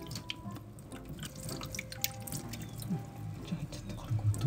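Water splashing and dripping in a small basin as hands wash a kitten, a run of small splashes and drips.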